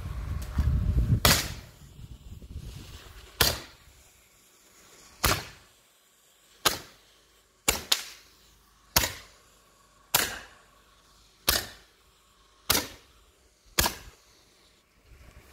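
Handheld roman candle firing about eleven shots, a sharp pop roughly every one to two seconds, two of them close together near the middle. A loud low rumble comes in the first second, before the first shot.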